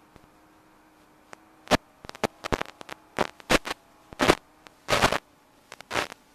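Irregular crackling bursts of radio static over a faint steady hum on the audio of an analog FPV video link, starting about a second and a half in and growing denser and louder toward the end. This is typical of the analog video signal breaking up as the quad flies low among trees.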